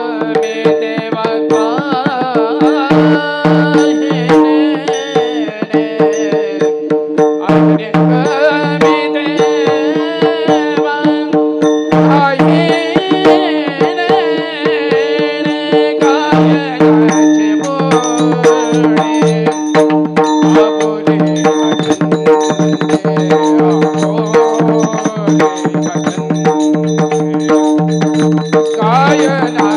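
Marathi devotional bhajan: long gliding sung phrases without clear words over a steady drone, with small hand cymbals (taal) struck in rhythm and a hand drum beating throughout.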